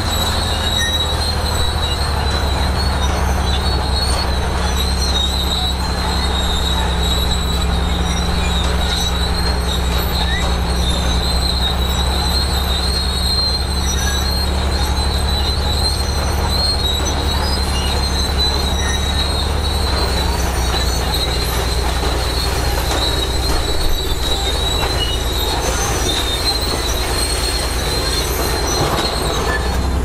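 Crawler bulldozer's diesel engine running steadily under load, with a continuous high squeal and clatter from its steel tracks.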